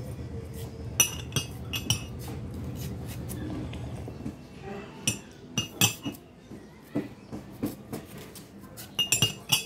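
A metal spoon clinking against a glass mug, sharp ringing clinks in small scattered groups with a quick run of them near the end, over a low steady background rumble in the first few seconds.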